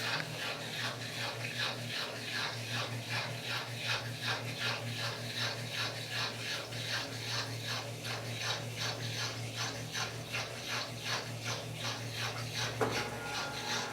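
Washing machine turning its drum slowly before the spin cycle, giving a regular mechanical ticking about three times a second over a steady low hum. This turn sheds excess water from the soaked clothes so the machine vibrates less when the spin starts. Near the end a steady higher whine starts up.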